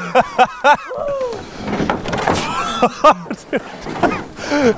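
Young men yelling and whooping in short, rising-and-falling shouts while swinging in a rope-hung aluminium canoe, with a few sharp knocks in between.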